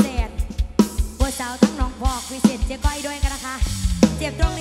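Instrumental break of a live lam sing band: a drum kit beats steadily over bass while a lead instrument plays short notes that bend in pitch, and a falling slide comes near the end.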